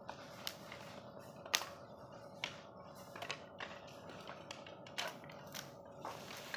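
Dry wood scraps clattering and knocking together as a pile of offcuts is rummaged through by hand, in irregular sharp clicks a few times a second at most.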